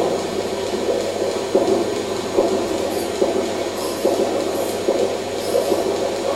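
A small robot trolley running along an overhead rail: a steady motor-and-wheel rumble with irregular clicks, and a few brief higher whirrs in the middle.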